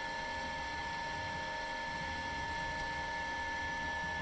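Scanima 25-litre pilot high-shear mixer running steadily: an even mechanical hum with a constant high-pitched whine.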